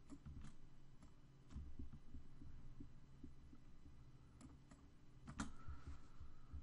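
A handful of faint, scattered computer mouse clicks over a low, steady hum.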